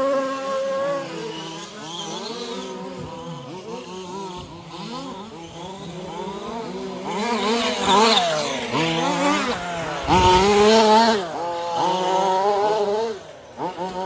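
Several 1/5-scale RC race trucks' small petrol engines racing, each revving up and easing off in pitch with the throttle and overlapping one another. They are loudest as trucks pass close about eight seconds in and again around ten to eleven seconds.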